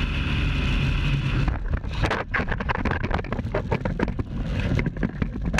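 Motorcycle engine running at speed with wind noise on the onboard camera. About a second and a half in, this gives way to a rapid, irregular run of knocks, clatter and scraping as the bike crashes and goes down.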